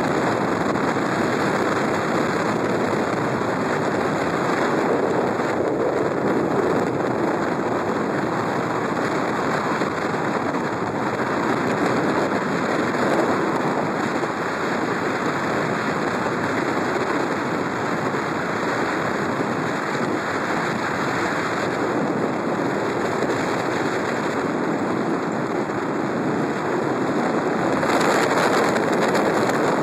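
Steady rushing road and wind noise from a vehicle driving at speed on a paved highway, growing a little louder and brighter near the end.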